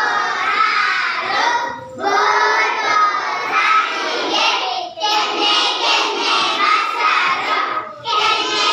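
A group of children singing loudly together in unison, in phrases broken by short pauses about every three seconds.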